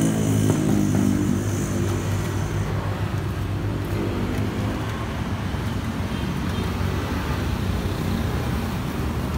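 Street traffic: a passing motor vehicle's engine hum fades away over the first few seconds, leaving steady road noise.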